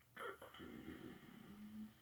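Faint breathing and a sniff from a person, with a short low hum near the end.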